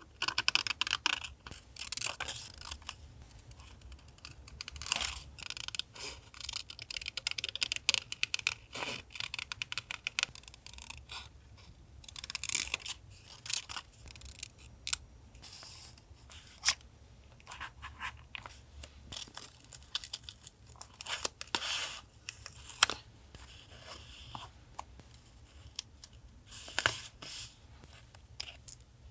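Paper being handled during collage journaling: irregular tearing, rustling and crisp little taps and scrapes, in short scattered bursts.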